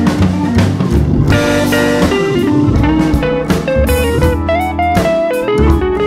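Instrumental background music: a guitar melody over bass and drums.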